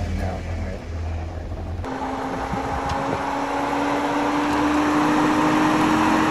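Jeep Wrangler engine pulling slowly toward the camera through a sandy, rutted off-road trail, its steady hum rising gradually in pitch and growing louder as it nears. Before that, for about two seconds, there is a low rumble of a Jeep passing on the dusty dirt track.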